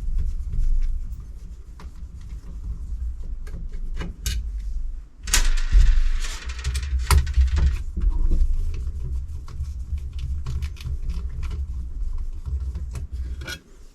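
Small metal clicks and clinks of hand tools and parts being handled over a low handling rumble, with a longer scrape about five seconds in.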